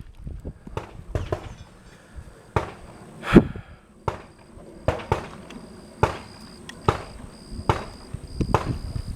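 An 1858-pattern cap-and-ball revolver being fired: a string of sharp shots about a second apart, the loudest about three seconds in with a ringing tail.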